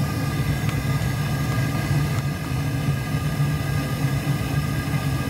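Amal gas burner firing into a homemade forge built from an old gas bottle, a steady low rushing sound with no change in level.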